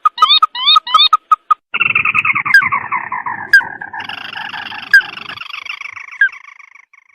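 Recorded lure call of the sintar mata merah bird: a quick run of short repeated notes with hooked, upward-sweeping calls, then from about two seconds in a long, harsh, layered call that falls slowly in pitch and fades out near the end.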